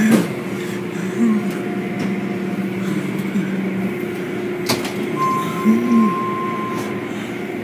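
Automatic car wash at work, heard from inside the car: cloth curtain strips and soapy water sweeping and splashing over the car against a steady machine hum. A single sharp slap or knock about four and a half seconds in.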